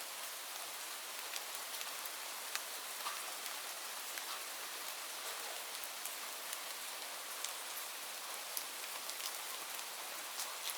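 Steady rain falling, a constant hiss with many distinct drops ticking.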